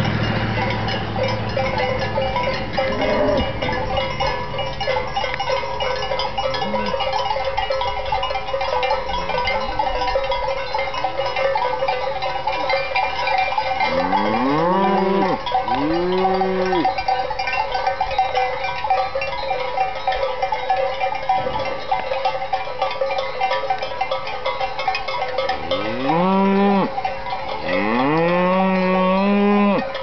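Cowbells on a herd of walking cattle ringing and clanking continuously, with cows mooing several times: two moos about halfway through and two more near the end, the last one long.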